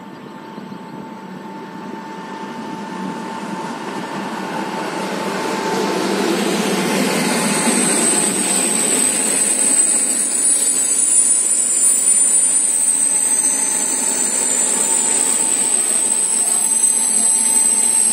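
Electric passenger train on an electrified line rolling into the station along the track beside the platform, its rumble growing louder as it approaches and draws level. A steady high-pitched whine joins about halfway through and stays to the end.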